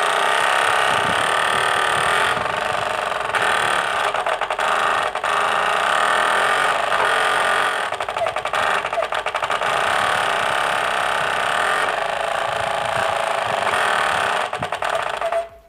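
Bicycle wheel spokes flicking a cut plastic bottle held against them, making a loud, fast, continuous rattle meant to imitate a motorbike engine. It stops suddenly near the end.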